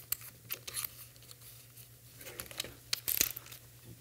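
Scattered light clicks and rustles of hand tools and small metal parts being handled on a workbench, over a faint steady low hum.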